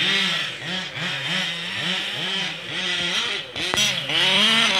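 Two-stroke petrol engines of 1/5-scale RC cars (a Losi 5IVE-T and a Kraken) revving up and dropping back over and over as they are driven, two pitches overlapping at times. There is one sharp click about three-quarters of the way through.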